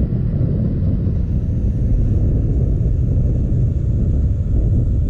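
Snowmobile running as it tows a sled across the ice: a steady low rumble.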